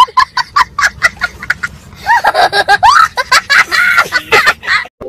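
A young child laughing hard: a quick string of short cackling laughs, then longer laughs that rise and fall in pitch, cutting off suddenly near the end.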